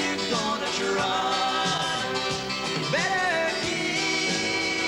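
Country song playing over the credits, with held notes and a slide up in pitch about three seconds in.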